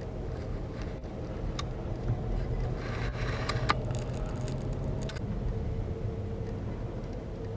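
Road traffic and vehicle engines running with a steady low rumble, with a few light clicks about three seconds in.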